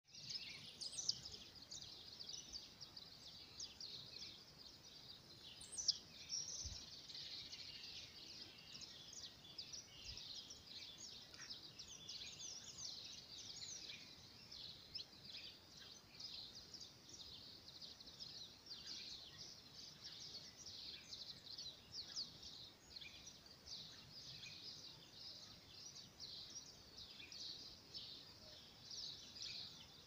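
Many small birds chirping together in a continuous, fairly faint high-pitched chorus, with two louder sharp calls about one second and six seconds in.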